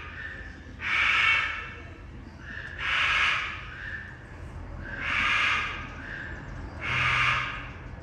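Lesser sulphur-crested cockatoo screeching: four loud, harsh calls about two seconds apart, each led in by a softer, shorter note.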